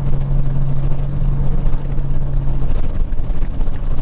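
Diesel engine and road noise of a Peterbilt 379 semi truck, heard from inside the cab while driving: a steady low drone that eases a little about three seconds in.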